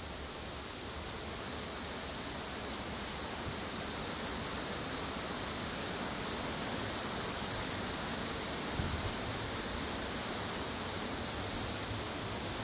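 A steady, even hiss with no birdsong in it, growing slightly louder, and a brief low rumble about nine seconds in.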